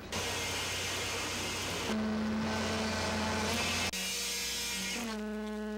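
Concrete poker vibrator running in freshly placed concrete inside wall formwork: a steady motor hum and buzz. Its tone changes abruptly about two seconds in, and again twice near the end.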